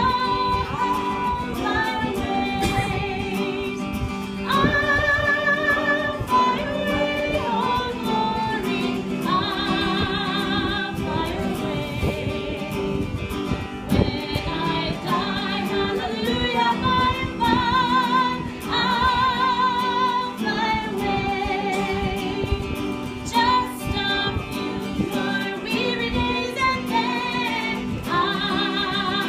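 A song: a woman's voice singing long, wavering notes over guitar and a steady accompaniment.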